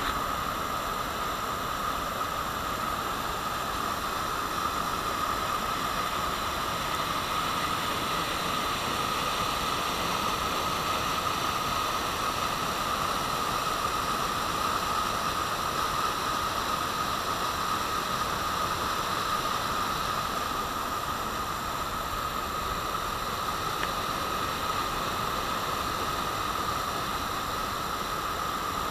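Steady, unbroken rushing of running floodwater after heavy rain.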